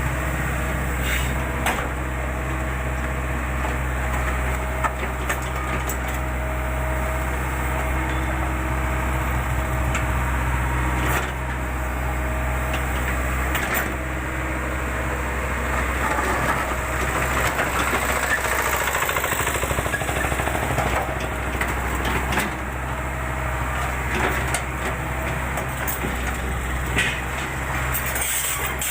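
JCB backhoe loader's diesel engine running steadily, with a few sharp knocks now and then.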